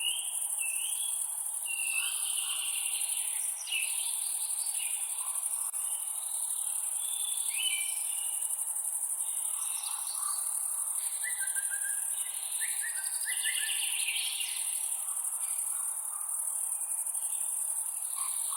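Forest ambience: a steady, high-pitched chorus of insects such as crickets, with birds singing many short whistled phrases over it, including a run of falling notes about two thirds of the way through.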